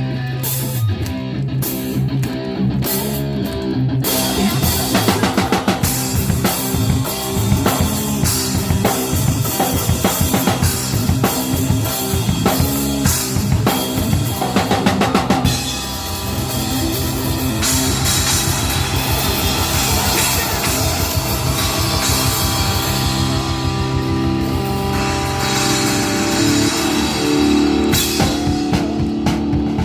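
Live rock band playing, led by a drum kit with a busy run of drum hits in the first half, then sustained guitar and bass chords in the second half.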